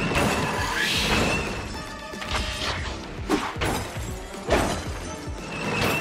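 Background music over added crash sound effects, with two sharp hits about three and a half and four and a half seconds in.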